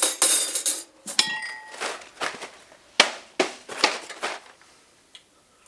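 Kitchen clatter: a noisy rattle that stops just under a second in, a ringing clink of dishware, then about half a dozen sharp knocks over the next few seconds.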